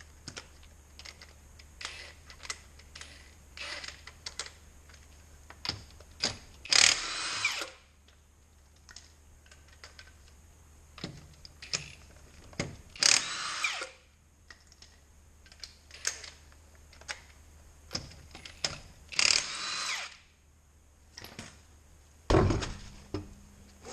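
Handheld power tool running in three bursts of about a second each, about six seconds apart, spinning off the wheel's lug nuts. Small metal clicks and clanks come between the bursts, and there is a heavy low thump near the end.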